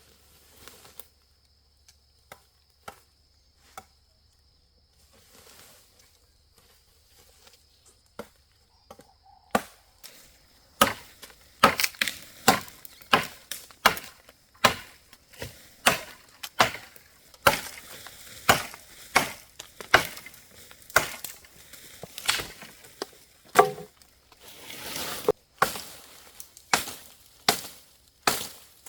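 Firewood being chopped: a few scattered knocks at first, then from about ten seconds in a steady run of chopping strokes, about two a second.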